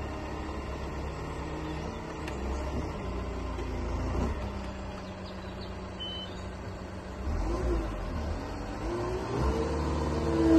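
Merlo telehandler's diesel engine running steadily. In the last two or three seconds its pitch rises and it gets louder as the engine revs up.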